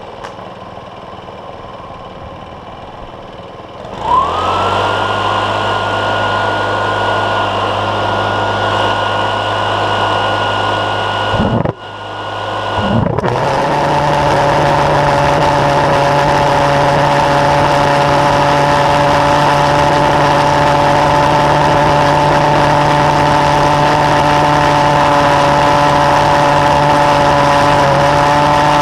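A petrol leaf blower starts about four seconds in and runs at a steady high pitch, blowing air into a pulse jet. After a brief drop near twelve seconds, the pulse jet lights and runs steadily and loudly. Its conic ring flame holder has been removed, which the owner says makes it blubber and hold back thrust.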